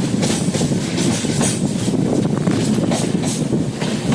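Running noise of a moving passenger train heard from an open coach doorway: a steady rumble of wheels on rail with a repeated clickety-clack clatter, two or three knocks a second.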